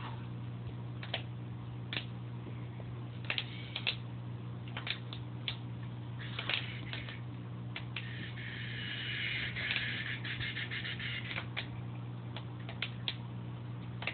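Steady low electrical hum from aquarium equipment, with scattered light clicks and ticks, and a soft hiss that swells for about three seconds around eight seconds in.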